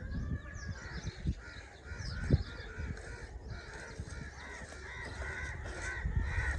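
Birds calling over and over in a steady string of short harsh calls, with higher chirps mixed in. A single sharp thump stands out about two seconds in.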